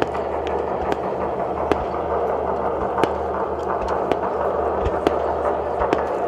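Fireworks display: scattered sharp pops of distant firework bursts, roughly one a second, over a steady rumbling background noise.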